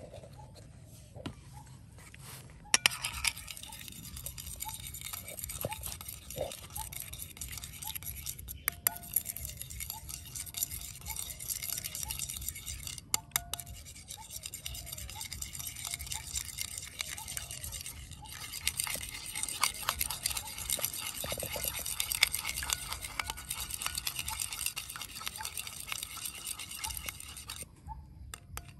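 Metal knife beating a runny mixture in a ceramic bowl: a fast, steady scraping clatter of the blade against the bowl. It starts a few seconds in, breaks off briefly midway and stops near the end.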